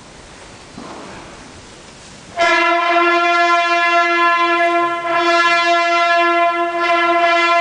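After a few seconds of hushed crowd quiet, bugles break in with one long, steady held note. This is the start of the bugle call that ends the minute's silence while the standard is raised.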